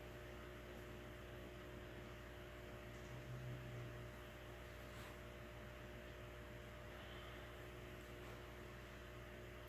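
Faint, steady electrical hum with a low buzz, swelling briefly a little past three seconds in, with a faint tick about five seconds in.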